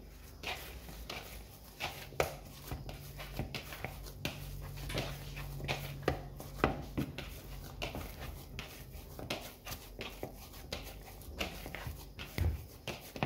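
Shortcrust pastry dough being kneaded by hand in a bowl: irregular soft thuds and clicks as the dough is pressed and worked into a smooth ball, the pastry at the end of its mixing.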